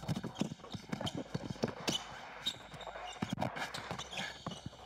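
Basketball dribbled hard on an indoor hardwood court: a run of repeated sharp bounces as the ball handler works against a defender.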